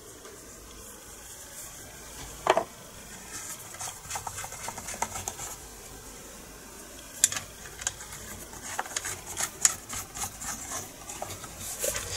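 Small metal clicks and rattles as the two bar nuts are fitted onto the chainsaw's bar studs over the side cover, with a sharper knock about two and a half seconds in and another about seven seconds in.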